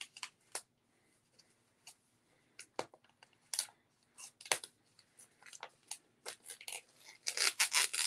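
Scissors snipping into a clear plastic package sleeve and the plastic crinkling as it is handled. At first there are scattered clicks and rustles, then a dense burst of crinkling near the end.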